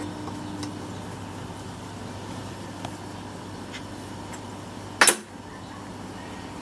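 Tool and machine handling at a metal lathe being set up: a steady low hum with a few faint clicks, and one sharp knock about five seconds in.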